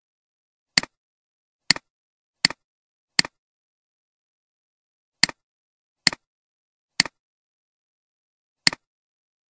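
Computer mouse clicking eight times at uneven intervals as checkboxes are ticked one by one. Each click is a short, sharp press followed by a fainter release, with silence between clicks.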